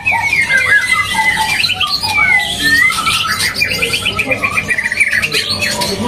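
Several caged male white-rumped shamas singing at once, overlapping whistles, sweeping notes and rapid trills.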